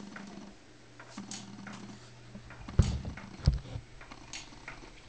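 Motorized baby swing running: a steady low motor hum with a click about every second and a half as the seat swings. Two low thumps come near the middle.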